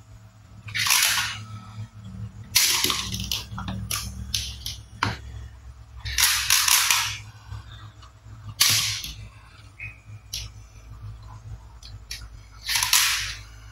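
Hard plastic toy guns and rods being picked up and handled on a table: several short scraping sounds, each under a second, with sharp plastic clicks in between.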